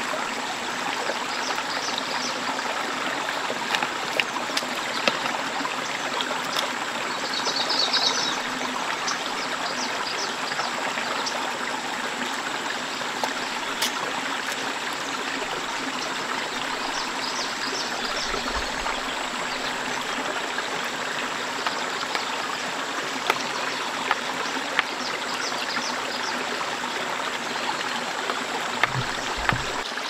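Steady rushing of a forest stream, with a short burst of bird chirping about eight seconds in and a few light clicks.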